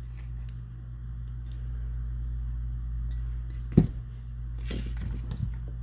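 Light handling of shotgun parts on a workbench: one sharp knock about four seconds in and a few faint clicks after it, over a steady low hum.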